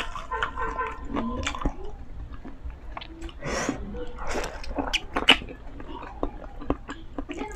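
Close-miked eating of crispy fried chicken: the piece is torn apart by hand, then bitten into about halfway through with a couple of crunches, followed by chewing with wet mouth clicks.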